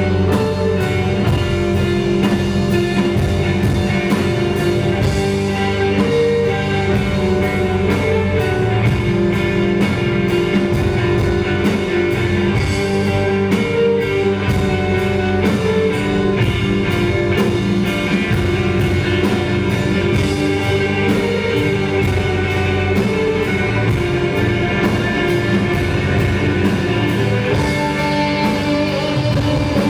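Live rock band playing: two electric guitars, bass guitar and drum kit, with held, droning guitar notes over steady drumming.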